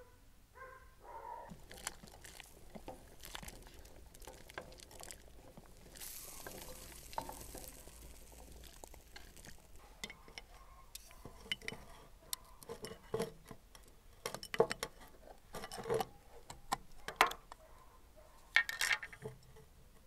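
Handheld metal jar opener prying at the metal screw lid of a glass jar: a run of sharp metallic clicks and clinks, loudest and most frequent in the second half, as the lid is worked loose.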